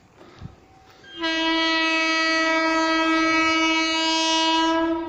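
Indian Railways locomotive horn giving one long, steady warning blast of about four seconds, starting about a second in.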